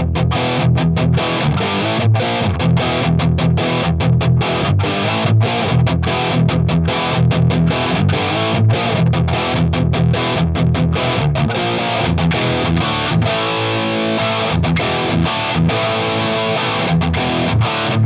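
Electric guitar played through heavy distortion: a History Les Paul-style guitar fitted with Seymour Duncan pickups, playing a choppy riff with short breaks between the chords.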